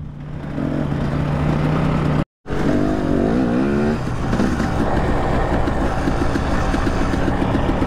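Husqvarna dirt bike engine running under way on a trail, its pitch wavering with the throttle around three seconds in, with wind noise over it. The sound cuts out for a split second about two seconds in.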